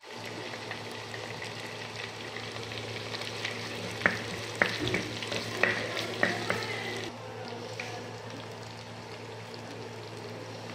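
Shallots, curry leaves and green chillies sizzling in hot oil in a pot, with a spoon stirring and knocking against the pot several times in the middle. A steady low hum runs underneath.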